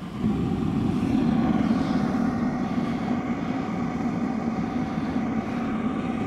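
Oil-fired burner of a backyard metal-melting furnace running with a steady roar, just switched over from gas to oil; the roar steps up sharply just after the start and then holds.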